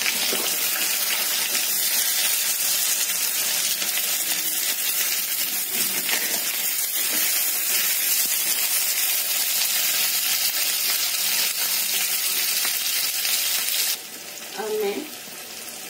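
Sliced onions sizzling loudly in hot oil in a kadai, stirred with a spatula, a steady dense hiss of frying. The sizzle drops off abruptly near the end.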